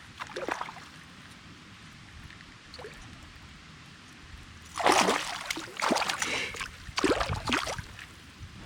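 Water splashing and sloshing at the surface beside a kayak: a small splash just after the start, then three loud splashes about five, six and seven seconds in.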